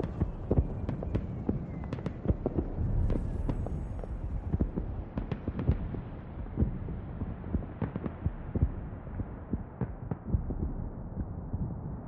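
Irregular crackling pops, a few each second, over a steady low rumble; no music.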